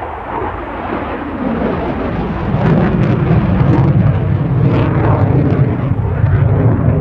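JAS 39C Gripen fighter jet's Volvo RM12 turbofan engine, a loud jet rumble that builds over the first couple of seconds and then holds, with a crackling edge.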